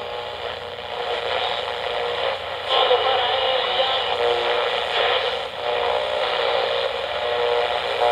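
Old-radio static with faint steady whines running through it, squeezed into a thin middle band, a little louder from about three seconds in.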